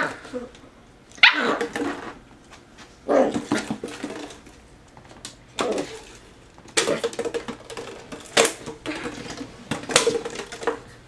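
Eight-week-old puppy play-barking at an empty plastic water bottle: short barks every second or two, coming closer together in the second half.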